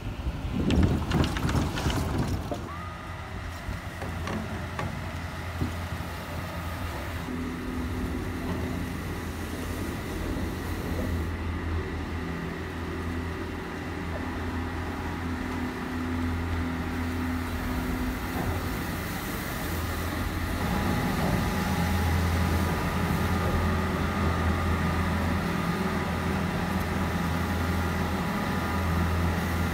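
Chairlift running: a rattling clatter as the chair passes over a tower's sheave wheels about a second in, then a steady mechanical hum with several held whining tones from the haul rope and wheels, louder in the last third as the chair nears the top station.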